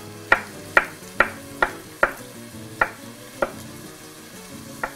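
Chef's knife chopping a garlic clove on a wooden cutting board: about eight sharp knocks, two a second at first, then slower, with a pause before a last one near the end. A soft sizzle of the soffritto frying in oil runs underneath.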